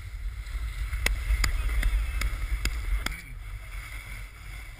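Wind buffeting an action camera's microphone over the scraping hiss of a snowboard sliding on snow, with a run of six sharp clicks about a second in; the sliding hiss and clicks stop about three seconds in, leaving mostly wind.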